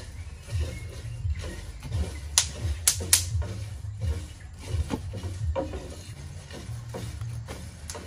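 A knife cutting through cauliflower stalks and leaves, with a dozen or so sharp, irregular cracks as pieces are cut and snapped away, over a low steady rumble.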